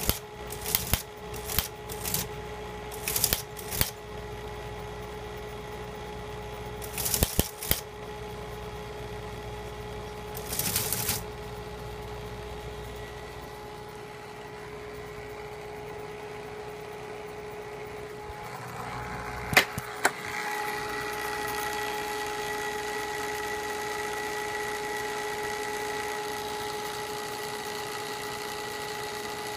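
Teletype Model 28 ASR teleprinter running. For the first eleven seconds it prints in short bursts of clacking type strikes over the steady hum of its motor, then it idles with the motor humming. About twenty seconds in come two sharp clacks, after which the mechanism runs louder with a steady thin whine, its cover open.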